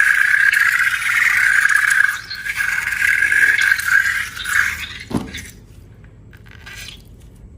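Air let out of a balloon through its stretched neck, giving a loud, steady buzzing squeal for about five seconds. The squeal ends with a quick drop in pitch as the balloon empties, followed by faint scraping and clicks.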